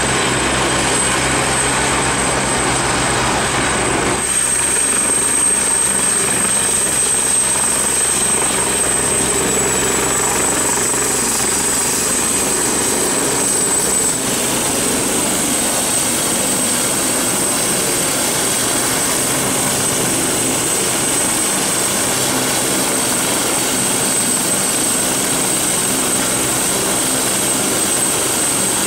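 Airbus helicopter running on the ground with its rotors turning: a steady turbine whine over rotor and engine noise.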